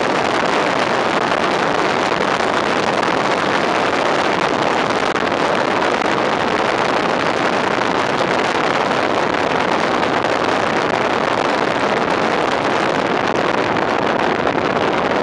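Steady rush of wind over the microphone from outside the cab window of a moving fire engine, blended with the truck's road and engine noise. No siren is heard, only an even, unbroken roar of air.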